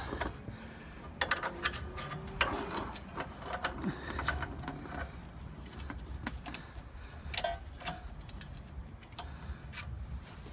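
Irregular metallic clicks and clinks as a steel suspension bolt and hand tools are worked against the lower control arm and spindle to line up the holes and feed the bolt through.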